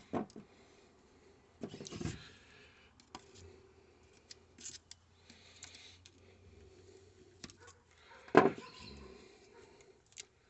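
Scattered small clicks, taps and knocks of hand-handled parts of a ceiling-fan motor being worked on, with one louder knock about eight seconds in.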